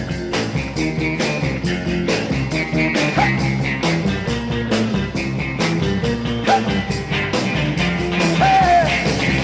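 Instrumental break in a mid-1960s rock and roll band recording: drums keep a steady beat under bass and electric guitar, with a few short bent notes.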